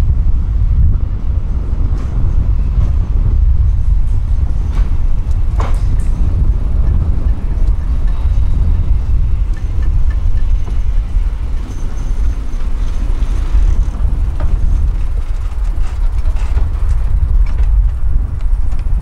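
Historic electric tram approaching along its track and rolling past close by, with a few clicks. A steady low rumble of wind on the microphone runs under it.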